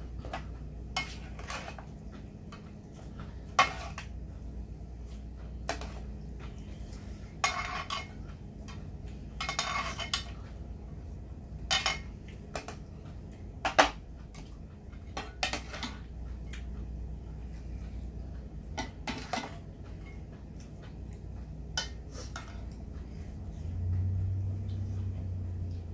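Chopsticks, tongs and a metal ladle clinking and scraping against stainless steel bowls and a metal pot of ramen, in scattered separate clinks with a few longer scraping bursts.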